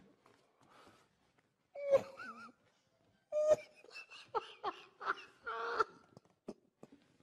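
A man laughing helplessly, without words. One short pitched burst comes about two seconds in, then a run of quick, breathless bursts of laughter follows for a few seconds.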